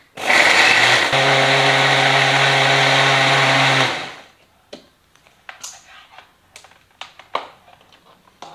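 Philips countertop blender running at full speed, grinding a spice paste of chillies, shallots, garlic and ginger with a little water. It settles into a steady hum about a second in and stops after about four seconds, followed by a few light clicks and knocks.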